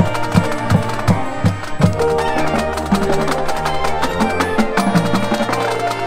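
Marching band playing live: brass over a steady bass-drum beat of about three a second, with low brass moving into long held notes about two seconds in, and sharp percussion clicks throughout.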